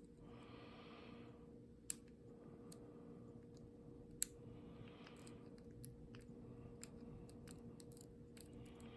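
Lock pick and tension wrench working the pins of an old American Black Beauty padlock: faint, irregular metallic ticks, with two louder clicks about two and four seconds in, over a faint steady hum.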